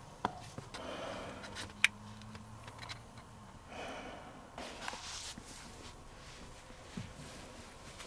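A person crawling through an attic over fiberglass insulation: breathing and rustling, with a few sharp knocks and clicks, the loudest a little under two seconds in.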